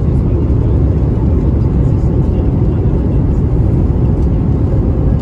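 Steady, loud low rumble of a Boeing 737 MAX 9 airliner, its engine and airflow noise heard from inside the passenger cabin.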